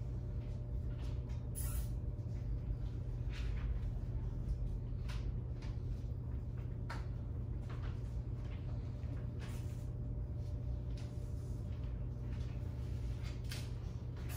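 Steady low hum with scattered faint clicks and rustles, a few every second or two.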